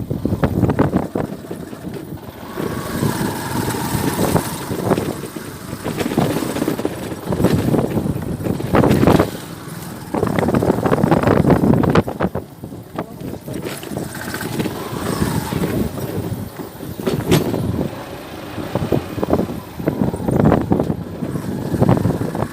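Road traffic: vehicle engines and road noise, rising and falling as cars and motorcycles go by.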